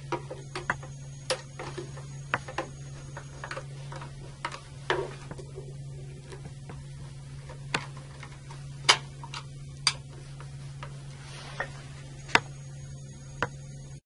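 Irregular sharp clicks and taps of a screwdriver driving screws to fasten the front cover onto a circuit breaker, with two louder clicks in the second half. A steady low hum runs underneath.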